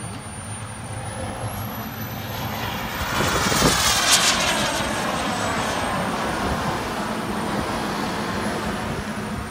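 Radio-controlled model jet making a pass overhead: its high engine whine climbs in pitch and grows louder, is loudest about three to four seconds in as the jet passes close, then drops in pitch as it flies on.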